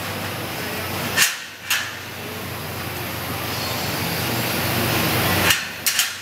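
Sharp metal clacks from the rod panels and gate of a stainless steel collapsible dog kennel being handled and swung shut, twice about a second in and again several times near the end, over a steady background hum.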